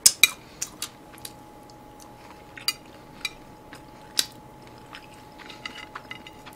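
Chewing of Korean side dishes, with a handful of sharp clicks from metal chopsticks on a plate and small crackly ticks near the end.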